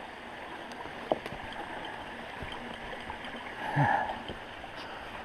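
Shallow creek water running over rocks, a steady rushing noise. A sharp click comes about a second in, and a brief low voice sound just before the four-second mark.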